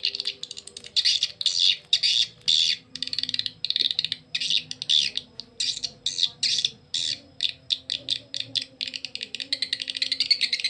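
Recorded edible-nest swiftlet calls, a swiftlet lure call sound, played through horn tweeters: high, buzzy chittering bursts in quick succession, running into a faster continuous chatter near the end.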